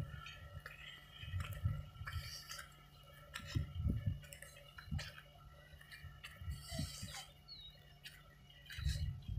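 Wind buffeting the microphone in irregular low gusts, with a couple of short faint chirps late on.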